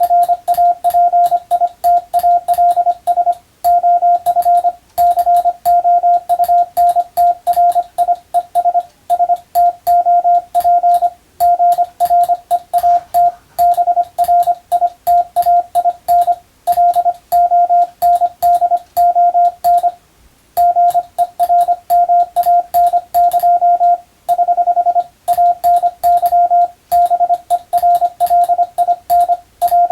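Hand-sent Morse code (CW): a single steady beep keyed on and off in dots and dashes at telegram-sending speed, each element edged by a faint click. There is a brief pause about twenty seconds in.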